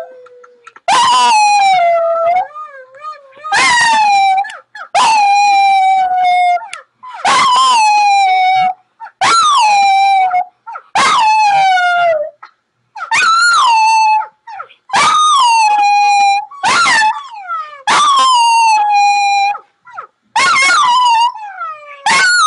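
A dog howling over and over: about a dozen long howls, each starting high, sliding down and then holding a steady note, with short breaks for breath between them. It is howling along to a video played to set it off.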